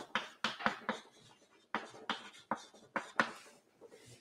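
Chalk writing on a blackboard: a run of short, irregular taps and scratches as words are chalked. The strokes thin out and stop near the end.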